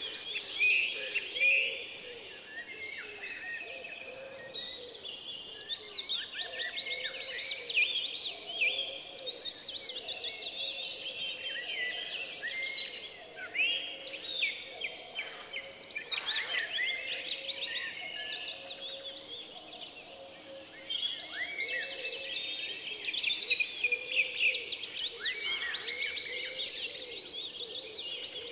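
Many small birds chirping and calling at once, a dense unbroken chorus of short high chirps and trills.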